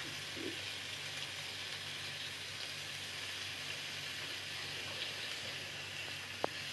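Paneer and vegetable skewers sizzling steadily in hot oil in a pan over a high flame, with one sharp click near the end.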